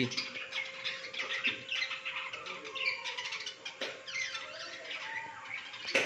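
A colony of budgerigars chattering: many short, overlapping chirps and warbles.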